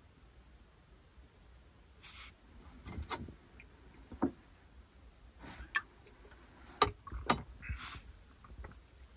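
A screw-capped drink bottle being opened, drunk from and set back on a table. A short hiss comes about two seconds in, then a run of clicks and small knocks as the cap and bottle are handled, and another short hiss near the end.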